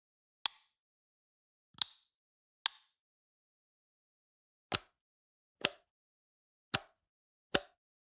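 An electrical switch flipped seven times, each a sharp single click with silence between. The first three clicks are crisp and bright; the last four, after a short gap, are fuller and heavier.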